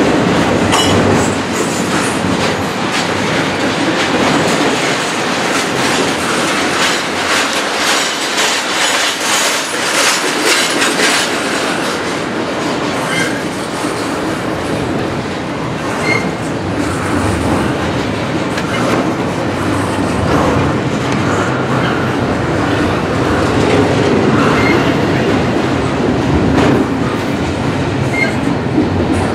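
Double-stack intermodal container train passing at close range: the steady rumble of the well cars, with the wheels clattering over rail joints, heaviest from about six to eleven seconds in.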